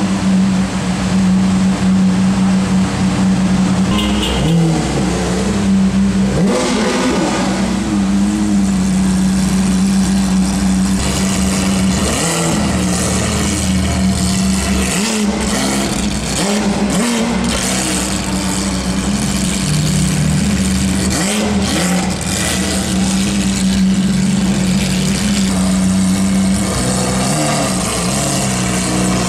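Lamborghini Aventador SV's naturally aspirated 6.5-litre V12 through a Capristo aftermarket exhaust, running at low revs with a steady drone, with a few brief rises in pitch from blips of the throttle.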